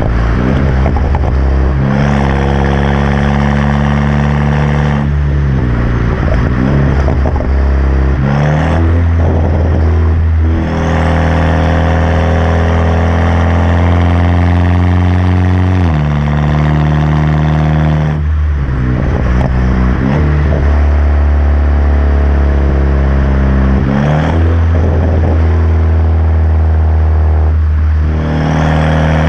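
BMW F30 328i's turbocharged four-cylinder engine, exhausting through an M Performance catback with muffler and resonator deleted and an aftermarket downpipe, running loud. Its pitch holds steady for a few seconds at a time, then shifts up or down to a new level several times.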